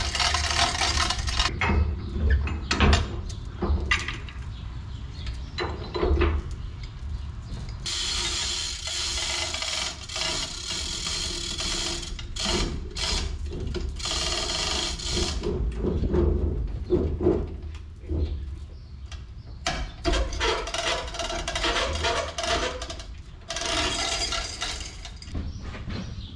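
Manual chain hoist being hauled by its hand chain, the chain rattling through the hoist and the ratchet clicking in several spells, with metal knocks in between, while it carries the weight of a diesel engine block.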